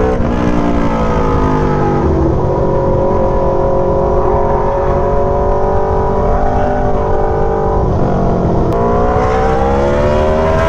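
Aprilia Tuono V4's V4 engine through an SC-Project GP exhaust: the revs fall over the first couple of seconds, hold steady at low speed, then rise as the bike accelerates near the end.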